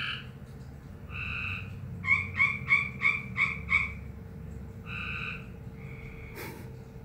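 A frog calling with an unusual call: single calls spaced about a second apart, then a quick run of six short calls, then two more single calls. A sharp click near the end.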